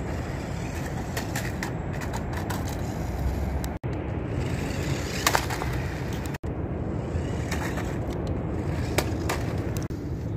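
Cheap New Bright toy RC car rolling over stone paving, its hard wheels and small electric motor making a steady rumble with scattered sharp clicks and knocks. The sound cuts out for an instant twice.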